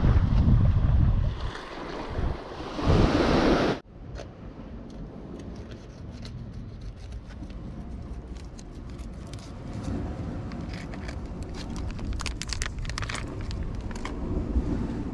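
Wind buffeting the microphone over sea surf, loud and gusty, cutting off abruptly about four seconds in. After that, a much quieter low rumble with scattered faint clicks.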